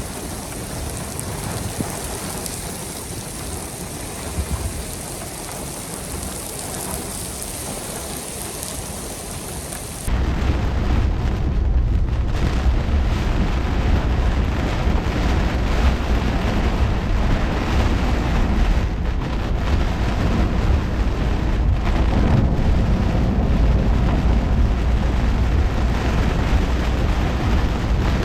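Steady heavy rain hiss from a severe thunderstorm. About ten seconds in it cuts abruptly to a louder, deeper rushing noise of storm wind and rain.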